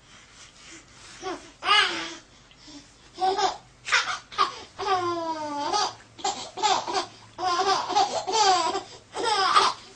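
A baby laughing hard in repeated high-pitched peals, with a long falling run of laughter about five seconds in.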